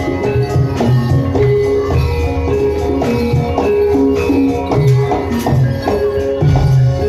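Javanese gamelan music for a jaran kepang dance: metal percussion plays a repeating melody of ringing notes over low drum beats, with bright struck and jingling percussion on top.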